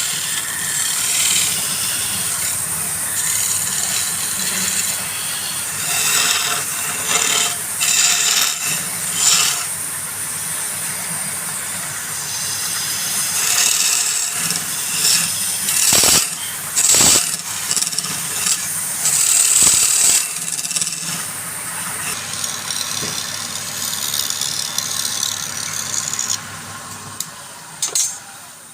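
Wood lathe running with a tool working against the spinning wood, an uneven scraping, rasping noise over a low motor hum. The hum and scraping die away near the end.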